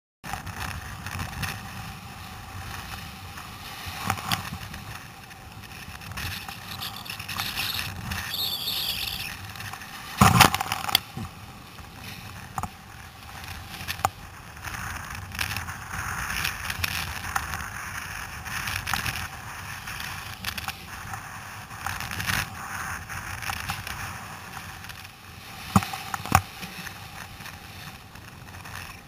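Surf and churning whitewater rushing and sloshing around a kayak riding through breaking waves, with scattered sharp knocks and splashes against the hull. The loudest knock comes about ten seconds in.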